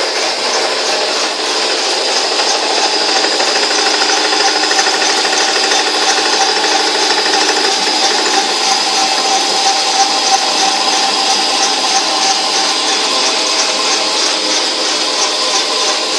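Metal lathe cutting a 1 1/4-inch black steel pipe: a steady scraping, grinding noise with a fast, even pulse from the turning work.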